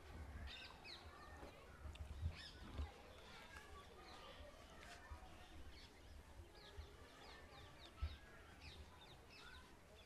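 Faint background birdsong: many short, scattered chirps over a low, uneven rumble.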